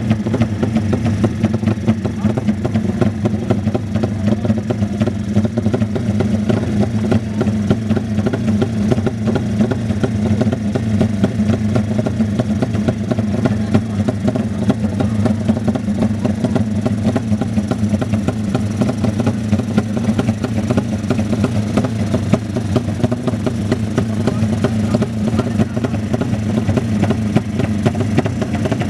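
Motorcycle engine running at steady high revs, held at one pitch throughout.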